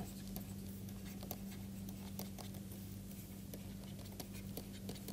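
Faint taps and scratches of a stylus writing by hand on a pen tablet, over a steady low hum.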